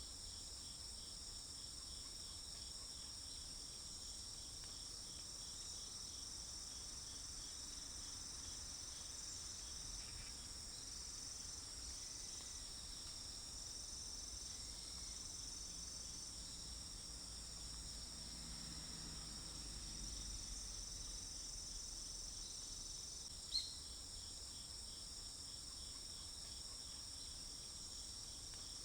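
Steady chorus of insects, crickets by their sound, making a continuous high-pitched trill in the forest, with a faint low rumble underneath. One sharp click sounds near the end.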